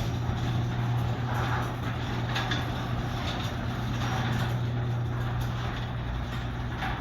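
Garage door closing under its electric opener: a steady motor hum with light clicks and rattles from the door.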